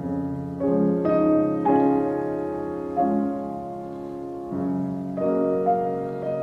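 Background piano music: slow chords, each struck and left to ring, a new one every second or so.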